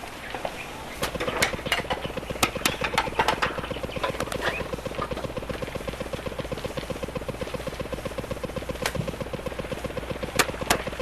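A machine running with a fast, even pulsing and a steady hum, starting about a second in, with scattered sharp clicks over it.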